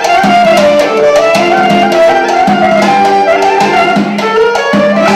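Live Armenian dance music from a keyboard band: an ornamented, wavering lead melody over a steady drum beat.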